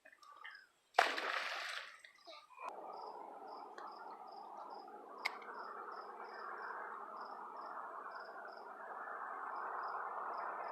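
Faint insect chirping, short high chirps repeating two to three times a second over a steady low hiss, with a brief noisy rush about a second in.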